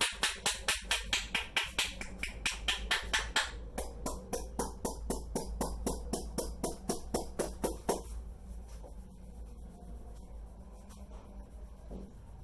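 Rapid, evenly paced percussive head-massage strokes, hands tapping on the head about five times a second. They stop about eight seconds in, leaving softer irregular rubbing sounds.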